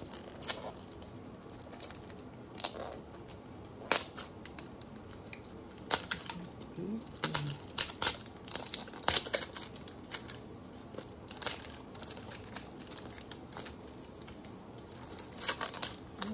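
Toy packaging being opened by hand: scattered crinkles, tears and sharp clicks of plastic and paper.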